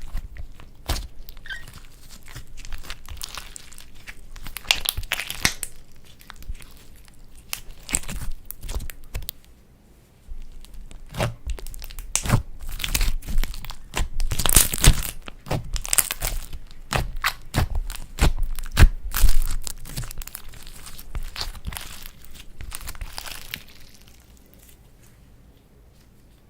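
Slime being kneaded, stretched and pressed by hand, giving bursts of crackling and popping clicks. There is a short pause about ten seconds in, and the sound fades out near the end.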